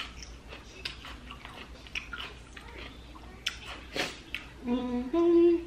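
Close-up mukbang eating sounds of boiled giant prawns being peeled and chewed, with scattered wet clicks and smacks. Near the end a voice gives two short held notes, the second higher and louder than the first.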